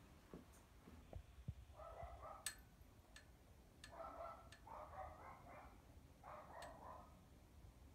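Faint dog barking in three bursts, about two seconds in, around four to five seconds in, and near the end, with a few light clicks scattered between.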